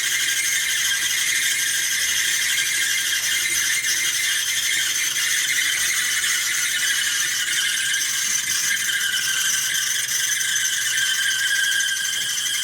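Whirlpool Duet Sport clothes dryer running with a steady high-pitched squeal from its turning drum: the sign of worn-out drum support wheels, with the idler pulley and belt also due for replacement.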